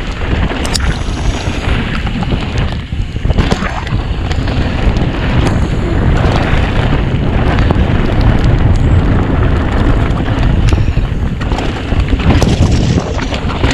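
Wind buffeting the microphone of a downhill mountain bike at speed: a loud, steady, rough rumble, with the tyres on the trail and many short knocks and rattles from the bike going over rough ground.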